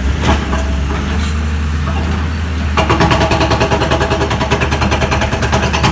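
Heavy construction machinery running with a steady low engine hum. About three seconds in, a fast, even mechanical rattle starts up over it.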